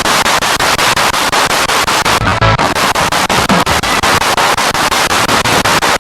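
Spirit box radio sweeping through stations: loud static hiss chopped into short slices several times a second, with a brief snatch of broadcast sound about two seconds in.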